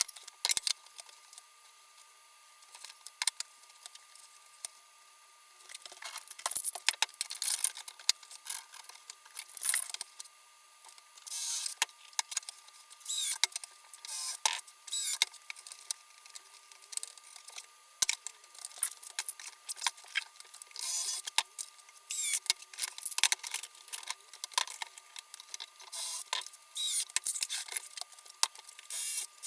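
Hard objects being handled: irregular clinks and knocks of wood and metal, with short scraping rattles, mostly in the second half.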